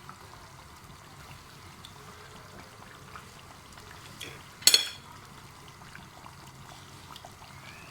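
Pot of groundnut soup bubbling as it cooks, with one sharp, loud click a little past halfway through.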